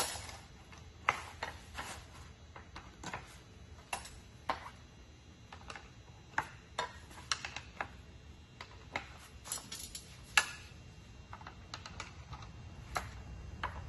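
Metal cot leg frames clicking and tapping against each other and the cot's fittings as they are pulled and inserted into the end holes, an irregular series of sharp clicks with one sharper knock about ten seconds in.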